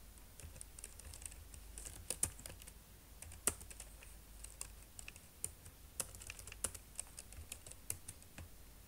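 Typing on a computer keyboard: irregular keystrokes at an uneven pace, with a few keys struck harder than the rest.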